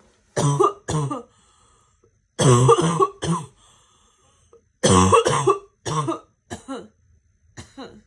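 A girl's barking cough fit: harsh, voiced coughs in clusters of two to four, the strongest clusters about two and a half and five seconds in, then a few weaker single coughs near the end.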